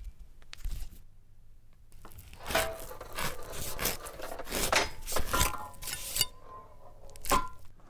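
Foley sound effects: a run of short knocks, scrapes and rubs on a wooden surface, some with a brief ringing tone. The first two seconds are quieter.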